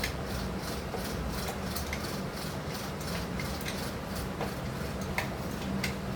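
Light, irregular clicks and taps of hand tools and screws while plastic body covers are screwed back onto a motorcycle, over a steady low hum.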